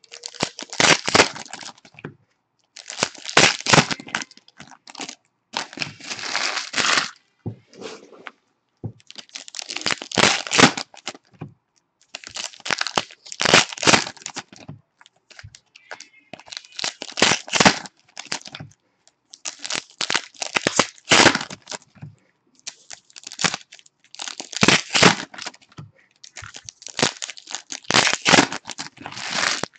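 Foil and cellophane trading-card pack wrappers being torn open and crinkled by hand, in about nine bursts every two to three seconds with brief pauses between.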